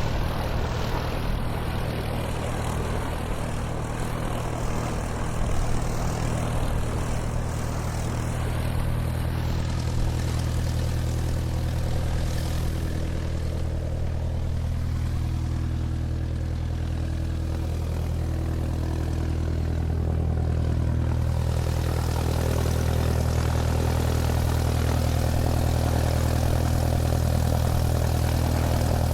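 Airplane engine running steadily as the aircraft taxis on the ground: a continuous low drone with a steady hum, growing slightly louder in the last third.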